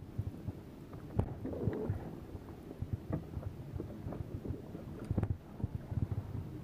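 Low rumble of wind on the microphone and water lapping against a boat hull, with scattered small knocks.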